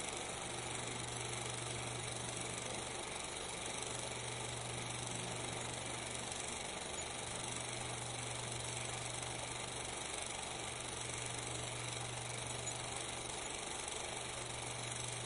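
Steady hiss with a constant low hum and no distinct events: the noise floor of a silent 8 mm film transfer.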